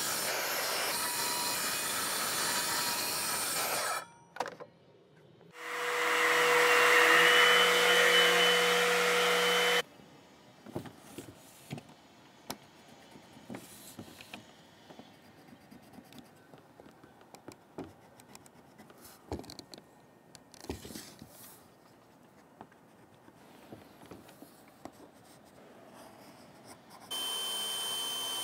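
A track saw cutting a sheet of tempered hardboard, then a second, louder run of the saw with a rising motor whine that stops suddenly about ten seconds in. Faint taps and rustles of the sheet being handled and measured follow. Near the end a DeWalt cordless drill starts up, driving a screw into the hardboard.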